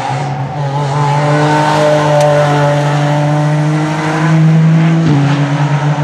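Race car engine running loud at high, fairly steady revs as the car drives through the corner; the pitch climbs slightly, then breaks and drops a little at a gear change about five seconds in.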